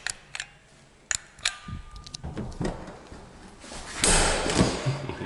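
Indoor handling and door noises: several sharp clicks and knocks, a short steady beep about two seconds in, then a louder rustling rush from about four seconds in.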